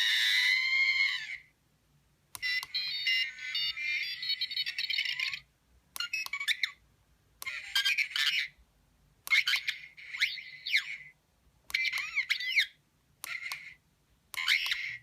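R2-D2 sound effects from a sound module fitted in a Bandai R2-D2 model: a series of separate electronic beeps, whistles and warbling chirps, some rising and falling in pitch, with short pauses between them.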